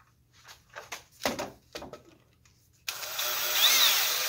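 A few light clicks and knocks of handling, then about three seconds in a DeWalt cordless drill starts up and runs steadily, driving a paste-waxed screw into the wooden bench frame, its pitch wavering as the screw goes in.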